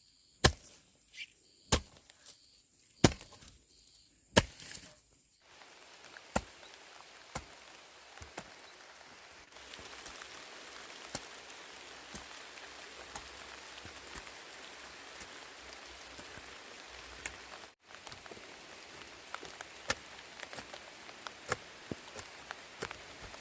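A run of sharp chopping strokes, roughly one a second, with a blade striking wood or a board. After about five seconds these give way to a steady hiss with scattered light ticks.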